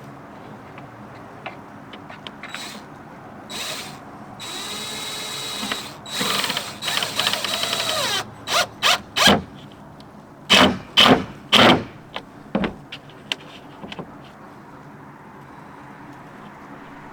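Power drill driving screws: two longer whirring runs of the motor, then several short, loud trigger bursts as the screws are run home.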